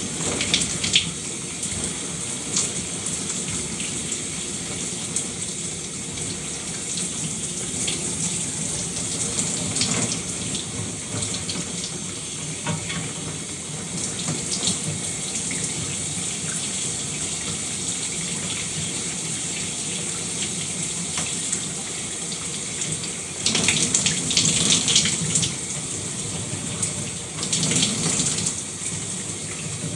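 Shower running: a steady spray of water falling and splattering. Twice in the second half the splashing grows louder and more uneven for a second or two.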